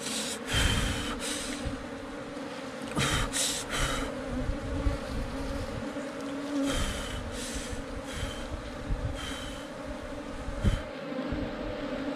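Honey bees buzzing in a steady hum around their opened ground nest as the comb is pulled out. Over it come a series of short scraping, rustling noises in small clusters as the comb is broken and handled.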